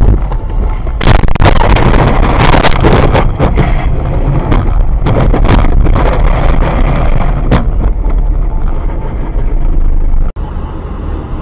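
Car jolting at speed over a rough roadside verge: a loud, heavy rumble of tyres on dirt and gravel with repeated thumps and knocks from the suspension, picked up by the dashcam's microphone. It cuts off suddenly near the end.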